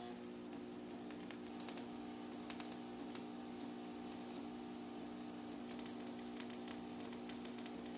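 Stick (arc) welding on a steel fuel tank: the electrode's arc crackles and spits steadily over a low, steady hum.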